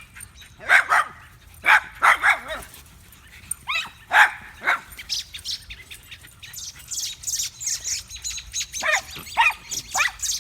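A shih tzu puppy barks a series of short high yaps in the first few seconds. After that, adult birds chirp rapidly and repeatedly in alarm as they swoop down on it.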